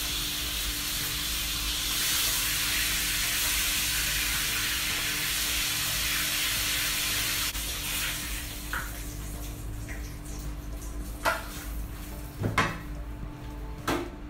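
Floured lobster meat frying in hot oil in a pan: a steady, loud sizzle. About halfway through the sizzle drops off abruptly, and then come a few sharp knocks of the metal skimmer against the pan and plate.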